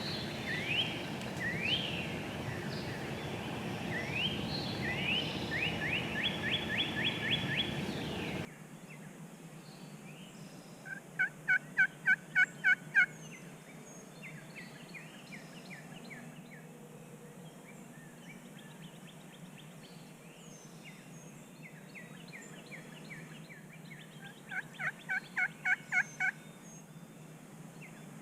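Wild turkey calling: two runs of about eight evenly spaced, loud notes, about four a second, around 11 s and again near 25 s in. Songbirds whistle rising notes throughout, loudest in the first eight seconds over a noisier background.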